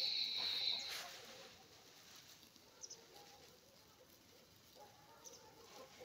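A flock of domestic geese grazing, with soft, low calls now and then. A breathy hiss is the loudest thing, cutting off about a second in.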